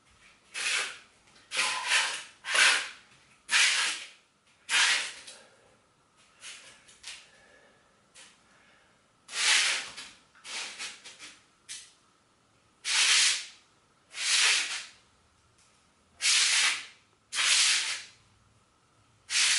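Plastic slider disc scraping across the floor under a bare foot during sliding lunges: a series of short hissing rubs, mostly in pairs as the foot slides out and back, with a pause partway through.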